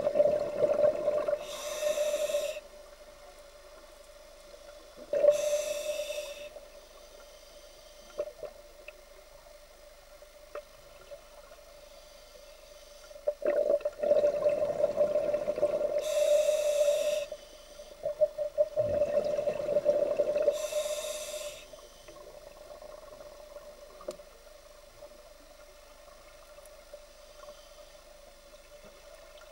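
A scuba diver breathing through a regulator underwater: hissing inhalations and gurgling bursts of exhaled bubbles, about four breaths, with a long pause between the second and third. A steady hum runs underneath.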